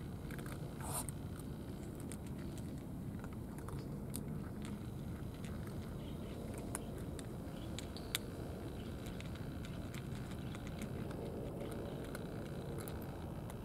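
Cats eating from plastic dishes: many small, irregular chewing and licking clicks over a steady low background rumble.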